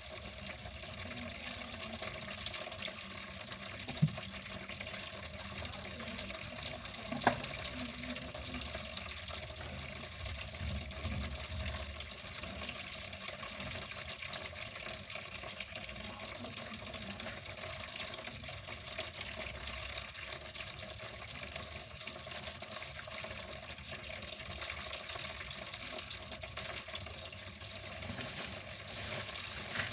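Water flowing steadily with an even splashing rush, with two brief clicks about four and seven seconds in.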